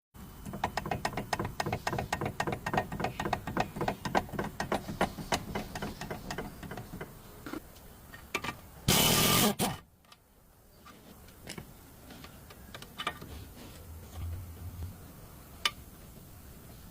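Rapid mechanical clicking, about four or five sharp clicks a second for several seconds. A short, loud burst of noise follows, then a few scattered single clicks.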